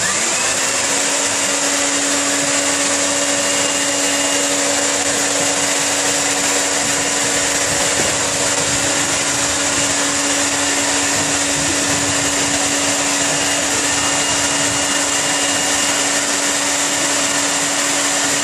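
Handheld electric air blower switching on and spinning up in the first moment, then running steadily with a constant hum as it inflates a clear water walking ball.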